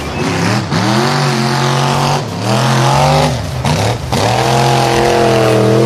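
Off-road truck engine revving hard through deep mud, its pitch dropping and climbing again several times over the constant rush of churning tyres and flying mud.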